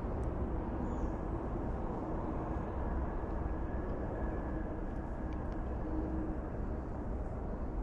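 Steady rumble of a running vehicle, with a faint steady whine over it.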